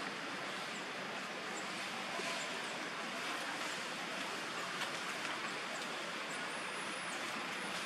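Steady outdoor background hiss in a forest, with a few faint high-pitched chirps and a longer wavering high whistle about six seconds in.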